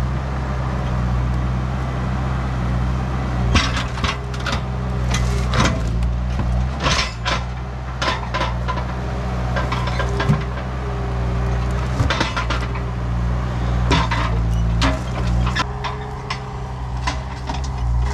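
ASV compact track loader's diesel engine running steadily while it works logs with its forks. Repeated sharp knocks and clatters sound over the engine as logs and steel bang together.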